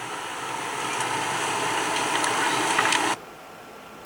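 Heavy rain pouring down in a steady hiss with faint scattered ticks of drops, growing slightly louder, then cutting off suddenly about three seconds in.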